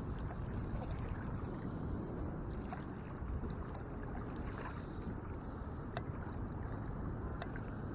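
Shallow saltwater sloshing and lapping around a wading angler's legs, over a steady low rumble, with a few faint ticks of small splashes.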